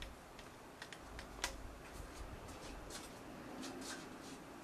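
Scattered light clicks and taps of small metal bicycle parts being handled, irregular rather than rhythmic, the sharpest about one and a half seconds in.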